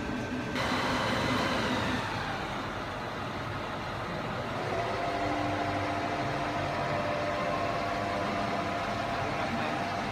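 Large CNC boring machine (PAMA ACC 127 P) running: a steady mechanical hum, with a brief hiss near the start and a steady whine that sets in about halfway through as its drives run.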